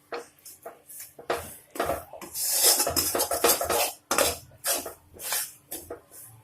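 A spatula scraping and knocking against a kadhai as wheat flour is stirred while it roasts in ghee. It comes in short, irregular strokes, with a longer continuous scrape a little past two seconds in.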